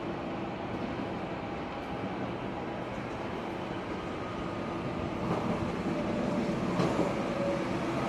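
Electric passenger train running along the track toward the listener. Its running noise grows louder over the last few seconds as it comes close.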